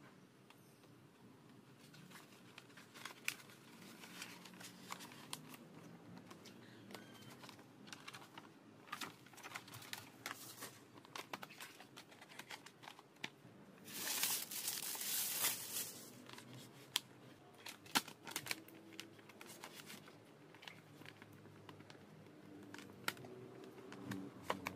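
Vinyl sticker sheet and its backing paper crinkling and crackling as they are handled and pressed onto a plastic motorbike body panel, with scattered small crackles. About halfway there is a louder rasp lasting about two seconds, like the sticker being peeled or pulled taut.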